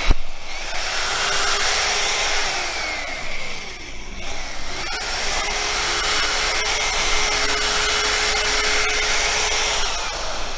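Electric rotary polisher running with its buffing pad pressed on a car door's painted panel: a steady motor whine. About three and a half seconds in, the pitch dips briefly and comes back up, then holds steady.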